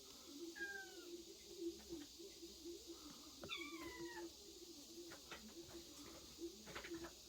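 Kittens mewing faintly: a short high falling mew about half a second in, then a longer one at about three and a half seconds.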